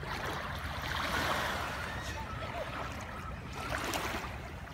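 Small waves washing up onto a sandy shore around bare feet, a steady hiss of water, with faint brief children's voices.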